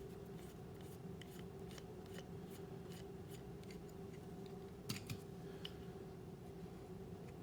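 Light, irregular clicks and ticks of small screws, a screwdriver and a plastic trigger plate being handled, as an Emek paintball marker's trigger plate is taken off, with a couple of sharper clicks about five seconds in. A faint steady hum runs underneath.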